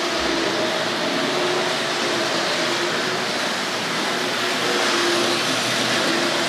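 Tri-ang R.555/R.556 Blue Pullman model train running on the layout track: a steady whirr and rattle from its motor bogie and ribbed wheels, growing slightly louder about five seconds in.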